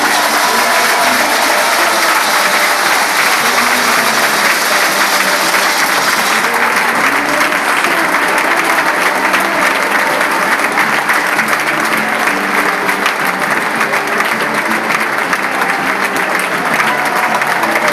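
Stadium football crowd applauding steadily, many hands clapping at once, with music playing underneath.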